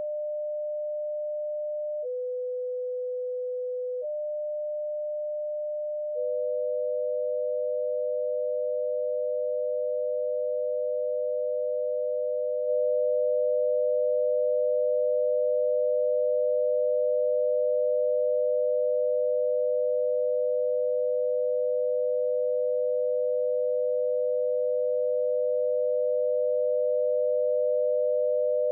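Binaural tone from the BeeOne software: two steady sine tones at about 500 Hz and 600 Hz, a 100 Hz beat apart. At first only one tone sounds at a time, the lower one for about two seconds near the start. From about six seconds both play together, getting a step louder at about twelve seconds.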